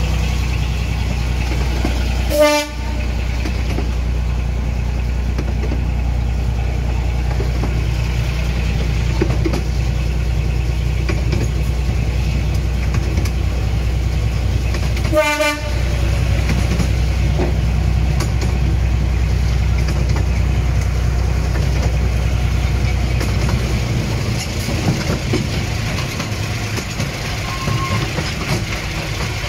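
Miniature railway diesel locomotive running steadily as it hauls the train, with two short horn toots, one about two seconds in and one about fifteen seconds in. Near the end the low engine drone falls away, leaving the rattle of the carriages on the track.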